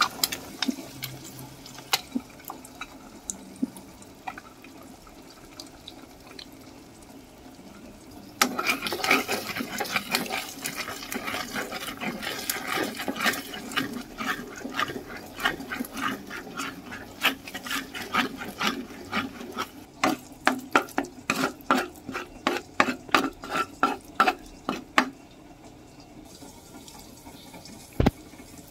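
Eggs frying in hot oil in a nonstick pan, a steady sizzle with a few light clicks. From about eight seconds in a spatula scrapes and taps against the pan as the eggs are broken up and scrambled, in quick repeated strokes that die down near the end, followed by one sharp knock.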